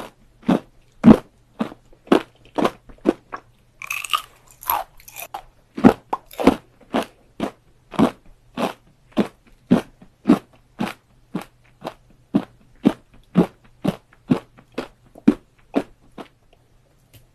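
Close-up mouth sounds of chewing kohakutou (amber sugar candy): steady crunchy chews about two a second, with a busier crunch around four seconds in, then the chewing fades out and stops near the end.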